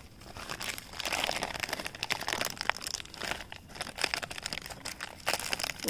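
Thin clear plastic cover crinkling and rustling in irregular crackles as hands peel it off a branch's air-layer ball of coconut fibre and roots.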